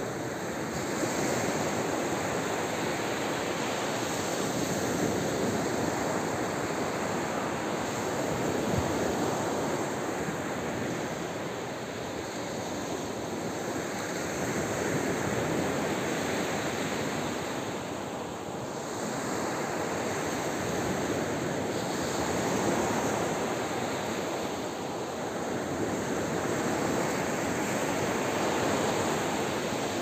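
Ocean surf breaking and washing up a sandy beach: a continuous rush that swells and eases every several seconds as each wave comes in and draws back.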